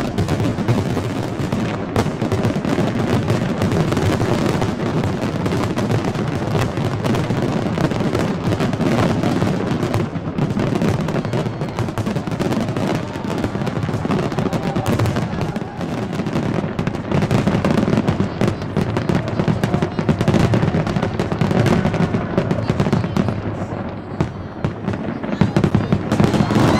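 Dense, continuous barrage of aerial fireworks: overlapping booms and crackling bursts follow one another without a break.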